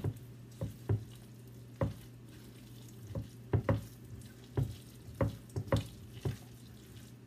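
A silicone spatula mixing a thick salmon and cream cheese filling in a stainless steel bowl. It makes irregular sharp knocks against the bowl, about one every half second to second, over a low steady hum.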